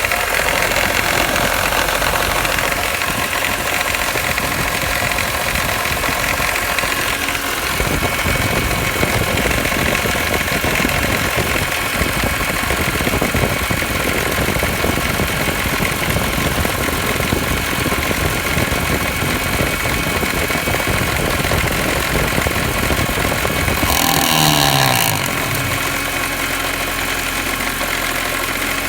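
BMW E46 M3's S54 straight-six engine running, with a thin steady high-pitched whine over it that the owner suspects comes from worn alternator bearings. Near the end a brief louder burst with a sliding tone, after which the sound settles a little quieter.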